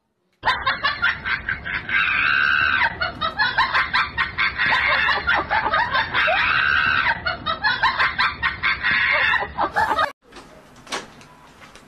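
A loud, tinny looping dance sound clip that repeats its pattern about every four seconds. It starts abruptly and cuts off about ten seconds in.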